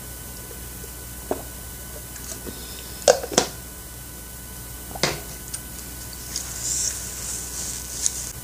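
A few sharp knocks and clicks, the loudest a pair about three seconds in, as a plastic drinking cup is handled and set down on a table after a drink. Near the end a paper tissue rustles as it is pressed to the mouth.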